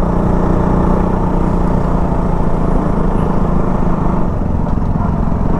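Motorcycle engine running steadily under way, heard from the rider's seat, its note holding an even pitch.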